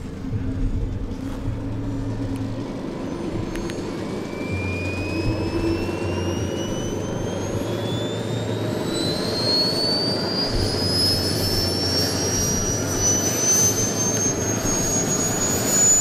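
A large radio-controlled scale model airplane's propeller and motor running as it taxis, with a thin high whine climbing slowly and steadily in pitch from about four seconds in.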